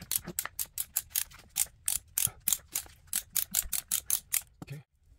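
Hand ratchet clicking in quick strokes, about five clicks a second, as a 22mm nut on a control-arm bushing is run down; a duller knock near the end.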